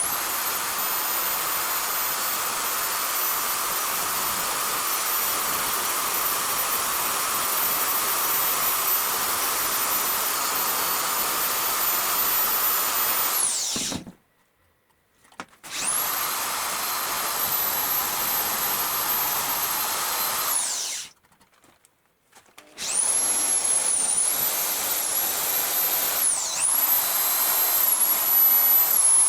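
A high-speed power tool runs in three stretches, spinning down and stopping twice and starting up again. Its high-pitched whine dips briefly twice near the end, as if under load against the work.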